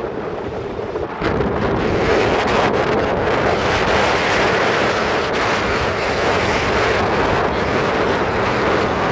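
Steady wind rushing over the microphone on a moving vehicle, mixed with the vehicle's running and road noise; it grows louder about a second in.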